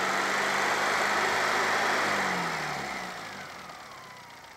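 A Mini's 998cc A-plus four-cylinder engine is held at high revs. About two seconds in the throttle is let off, and the revs and a whine fall away as it settles back toward idle.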